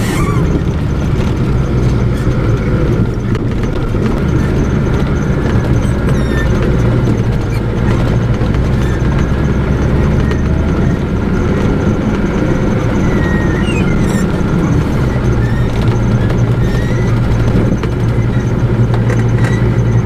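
Pickup truck driving on a gravel road, heard from inside the cab: a steady engine drone under tyre and road noise.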